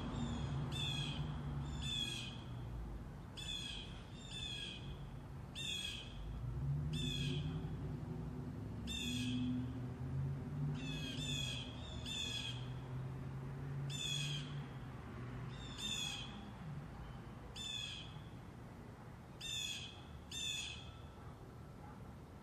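A bird calling over and over, short calls about one a second. Beneath the calls is the low drone of a distant jet airliner, which fades toward the end.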